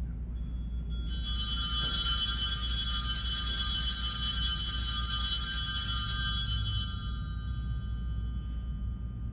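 Altar bells rung at the elevation of the chalice after the consecration: a bright, many-toned ringing that starts about a second in, holds for several seconds and then fades away.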